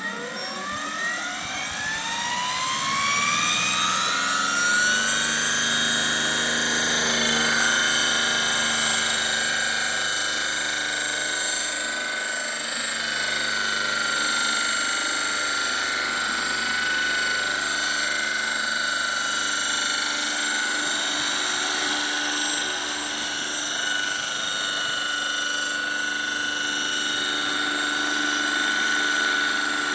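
Radio-controlled scale model Boeing Vertol 234 tandem-rotor helicopter spooling up: its whine rises steeply in pitch over the first six seconds or so, then holds steady as the model lifts off and flies.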